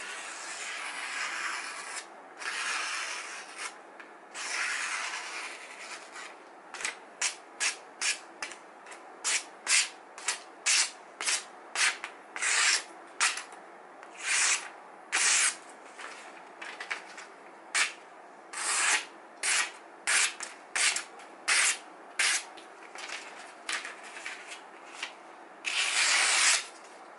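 A freshly sharpened D2-steel folding knife slicing through a sheet of paper in a paper-cutting test of the new edge. A few longer slicing strokes come first, then a quick run of dozens of short cuts, and one longer slice near the end.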